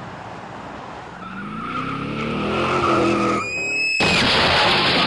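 Road noise, then an engine revving higher, a brief tyre screech, and a little before the end a sudden loud vehicle crash with crunching and scraping.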